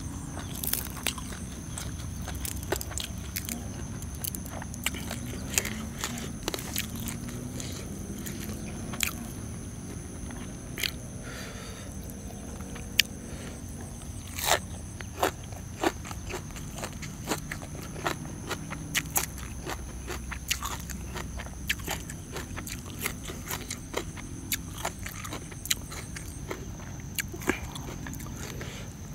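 Close-up eating sounds: a person biting and chewing crunchy food, with sharp crunches at irregular intervals.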